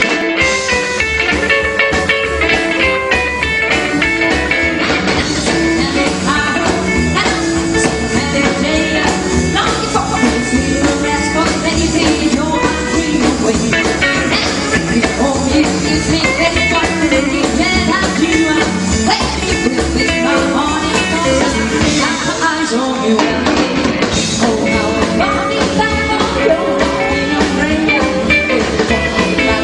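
Rockabilly band playing live, a full band with a steady beat.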